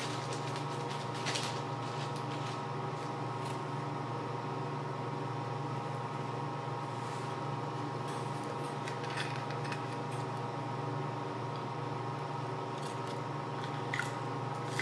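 A steady mechanical hum throughout, with a few faint light clicks and plastic rustles as thin scroll saw blades are handled out of their plastic packets.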